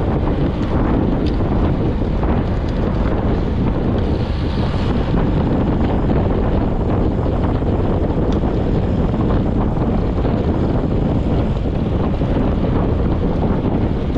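Steady, heavy wind noise on the microphone from riding a road bike at speed, a low continuous rush.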